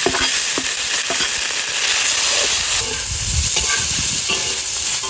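Diced fatty pork sizzling steadily in a hot wok as a metal spatula stirs it, with a few light knocks and scrapes of the spatula. The meat is starting to render its fat.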